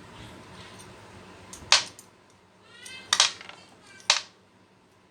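Sharp metallic clanks of jackhammer parts being knocked and handled while they are cleaned: three loud strikes about a second apart, the middle one doubled.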